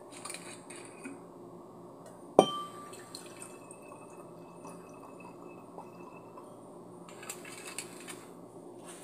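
Red wine poured from a bottle into a stemmed glass, quiet and steady for a few seconds. A single sharp glassy clink comes about two seconds in, before the pour.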